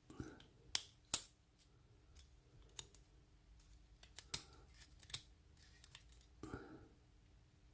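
Irregular small metallic clicks and ticks as the tiny pins, springs and parts of a dismantled lock core are handled and set down, with two sharper clicks about a second in.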